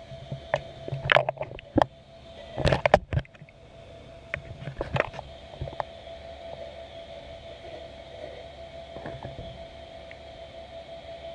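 Underwater sound in a large aquarium tank, heard from inside a submerged metal cage: a steady hum with scattered clicks and knocks. The loudest is a quick cluster of knocks about two and a half seconds in, and it settles to the hum alone from about six seconds.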